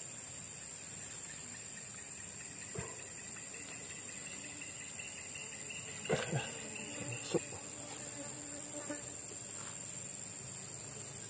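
Steady high-pitched chirring of insects in the surrounding vegetation, with a few short knocks and rustles of hands working in the brush at the hole a little past halfway.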